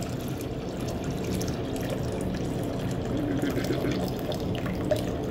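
Water poured in a steady stream from a glass jar into a plastic 2-liter soda bottle, filling it.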